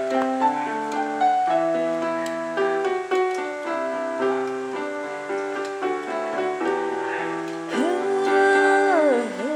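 Piano playing a chordal intro of held notes. About eight seconds in, a singing voice enters on a long held note that slides down near the end.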